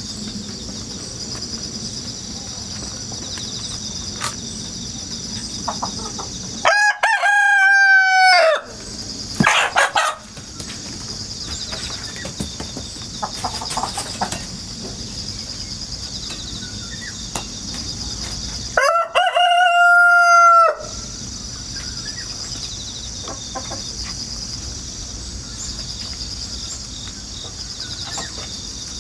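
Rooster crowing twice, about twelve seconds apart, each crow about two seconds long. Between the crows, crickets chirr steadily, and there is a brief noisy burst shortly after the first crow.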